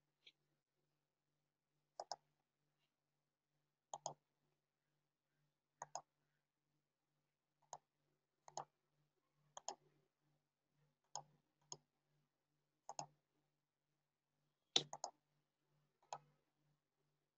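Computer mouse buttons clicking: single clicks and quick pairs every second or two, over near silence.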